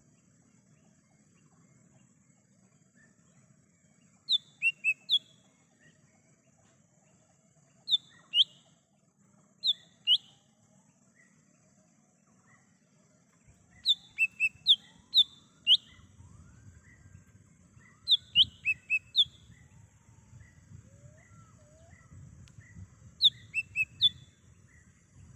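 Lesser green leafbird (cucak ijo mini) calling in short sharp whistled notes in clusters of three to five, repeated every few seconds. Fainter calls of other birds and a steady high hiss run underneath.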